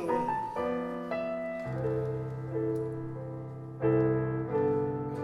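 Piano playing a short accompaniment passage between sung lines: a handful of chords struck and left ringing, each fading before the next.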